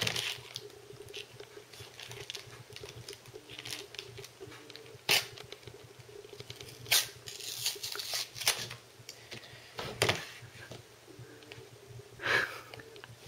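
A stiff plastic blister pack on a cardboard backing card being handled, rustling, with several sharp plastic clicks.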